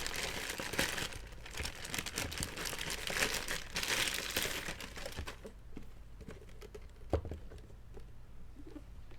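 Packaging crinkling as it is handled, dense for about five seconds and then quieter, with a single knock about seven seconds in.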